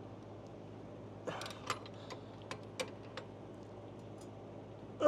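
Hand socket ratchet clicking in a few short strokes as a lawnmower blade bolt is turned in, the clicks coming between about one and three seconds in.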